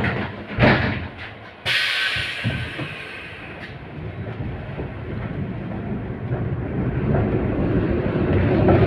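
LVS-86K tram pulling away from a stop: a thump, then a sudden burst of hiss that fades over about two seconds, then the rumble of motors and wheels building as the tram gathers speed.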